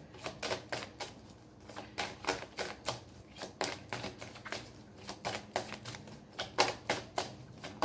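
A deck of tarot cards being shuffled by hand: a quick, irregular run of light card clicks and slaps, several a second, with short gaps.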